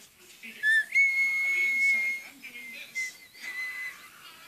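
A high whistled note held steady for about a second, after a short rising chirp, then a second, slightly wavering whistled note near the end.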